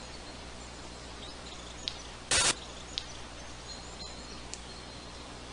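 Forest ambience with faint, high bird chirps over a steady hiss and low hum. A little over two seconds in, a short, loud burst of hiss cuts across it.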